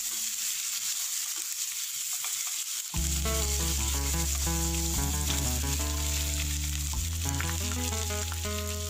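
Oil sizzling steadily as whole boiled eggs fry in spiced oil in a nonstick pan. About three seconds in, background music with a bass line starts and plays over the sizzle.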